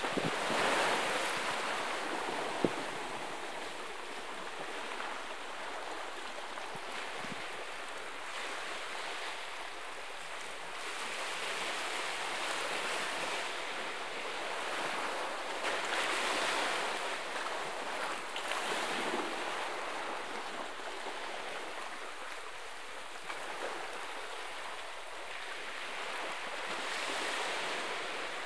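Small sea waves washing and breaking on a rocky shore, swelling every few seconds, with a single sharp click about two and a half seconds in.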